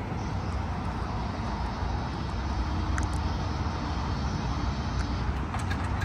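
Steady low rumble of road traffic, cars driving through a railroad grade crossing.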